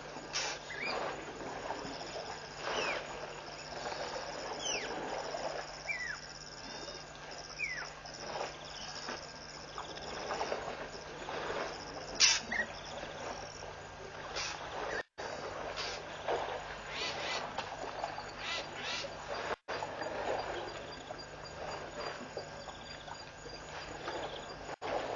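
Waterhole ambience with African elephants drinking: water stirring and splashing, with several short falling bird calls and a high insect trill. One sharp click stands out about twelve seconds in.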